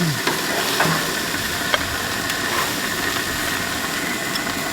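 Gas grill burners running low with a steady hiss and sizzle, and a light click about two seconds in.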